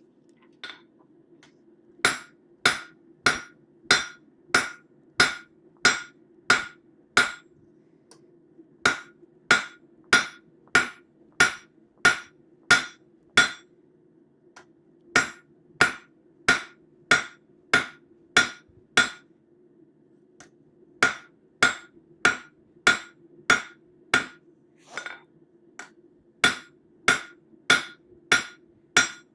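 Blacksmith's hand hammer striking a hot stainless steel bar on an anvil, drawing out a knife handle. Sharp ringing blows come about one and a half a second in runs of eight to ten, with short pauses between runs, over a faint steady low hum.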